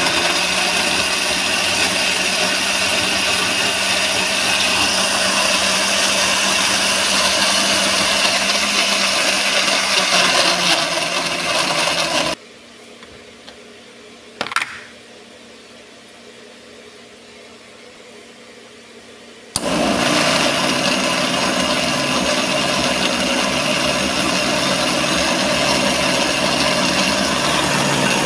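Countertop electric blender running at full speed, puréeing tomato, onion, garlic and red pepper into a paste. It stops about twelve seconds in, a single knock follows while the jar is open, and the motor starts again about twenty seconds in and keeps running.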